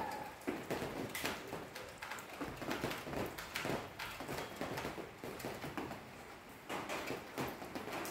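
Light rain: scattered drops tapping on nearby surfaces as separate, irregularly spaced taps, several a second.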